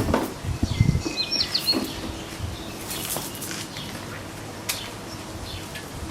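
A few knocks and dull thuds in the first second, with a bird chirping briefly, a quick run of short gliding notes, about a second in; then scattered faint clicks.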